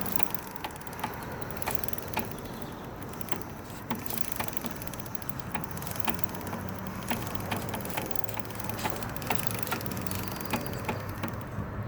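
2003 Suzuki GSX-R600 inline-four running, with a loud clicking repeating about twice a second over the steady engine hum. The owner thinks the clicking comes from the transmission.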